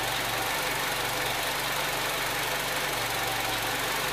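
Nissan car engine idling steadily under the open hood.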